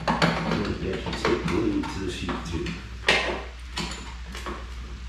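Metal clinks and knocks of hand tools and loose parts against the go-kart's engine and frame as the engine is being stripped off, with a sharper knock about three seconds in.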